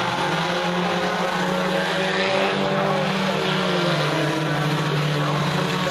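Engines of a pack of dirt-track stock cars running hard together during a race: a steady, loud blend of engine tones, with pitches shifting slightly as cars accelerate and pass.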